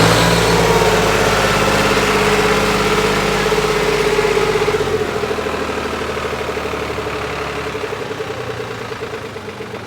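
Tractor diesel engine revved up and held at high speed, then easing off and winding down toward idle over the second half.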